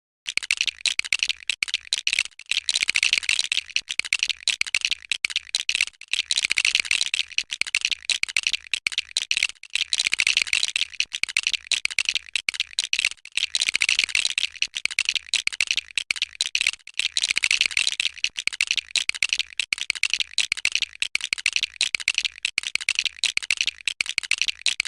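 Small plastic LEGO pieces clicking and rattling in a dense, rapid stream of clicks as the set is handled and snapped together.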